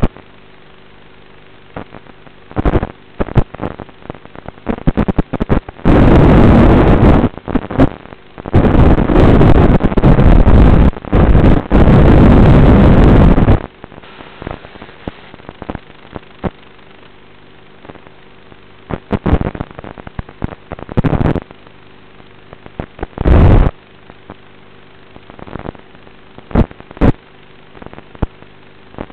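Loud, irregular surges of harsh noise in an FPV quadcopter's recorded audio, the longest run lasting about six to thirteen seconds in, then short bursts, over a steady low hum.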